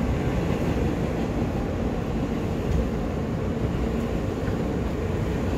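Steady running rumble of an R160 subway car travelling along the track, heard from inside the car.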